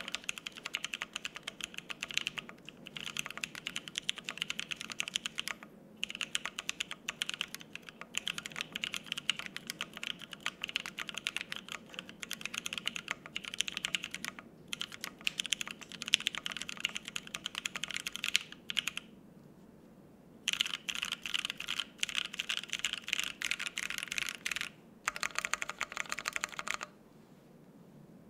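Typing on a Bear 65% Ergo custom mechanical keyboard with lubed Penguin tactile switches, an FR-4 plate and GMK double-shot ABS keycaps: fast, continuous keystrokes broken by short pauses, with a longer pause of about a second and a half around two-thirds of the way through. The typing stops near the end.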